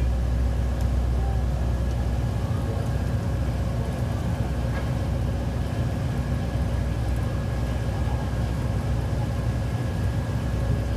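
Tour boat's engine running at a steady drone, heard from aboard, with a constant low hum and a few steady higher tones.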